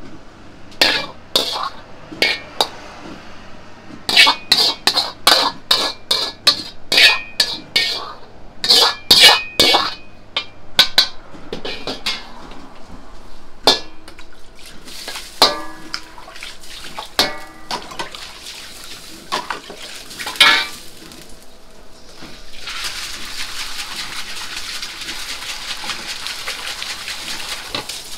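Metal ladle clanking rapidly and repeatedly against an iron wok, then slower, ringing knocks. About two thirds of the way through, a steady sizzle of hot oil in the wok takes over.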